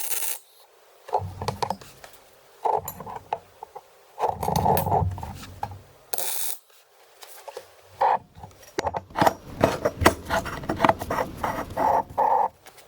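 Irregular workshop clatter: short knocks, clinks and scrapes in bursts with brief gaps, getting busier in the second half.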